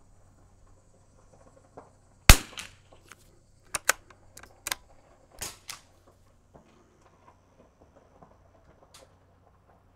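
A single .22 LR rifle shot from a 1972 Anschutz bolt-action sporter about two seconds in, followed over the next few seconds by several sharp clicks as the bolt is worked to eject the case and chamber the next round.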